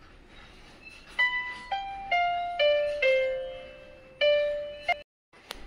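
Background music: single ringing notes played one after another, stepping down in pitch, cutting out briefly near the end.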